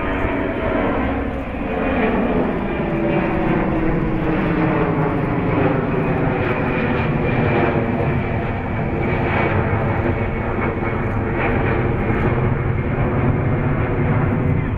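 Il-76MD-90A transport jet flying past overhead, its four PS-90A turbofan engines making a steady, loud jet noise, with engine tones sliding down in pitch over the first few seconds.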